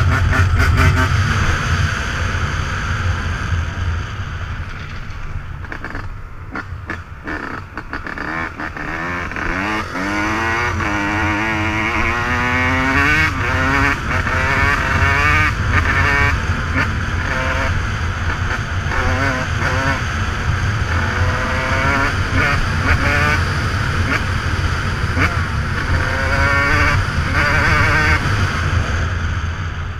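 Dirt bike engine being ridden hard, its pitch climbing again and again through the gears in the middle, then running at a steadier pitch.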